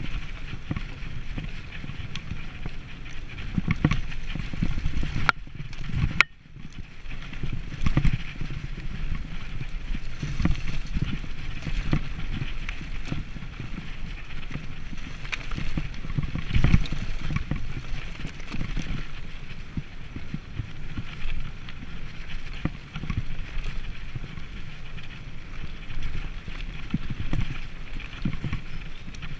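Mountain bike riding fast over a dirt forest track: a continuous rumble and rattle from the tyres and bike jolting over bumps. The sound cuts out for about a second roughly five seconds in.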